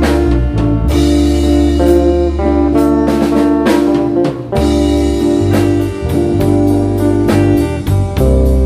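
Live rock band playing: electric guitar and bass guitar over a drum kit, with sustained guitar chords and regular drum and cymbal hits.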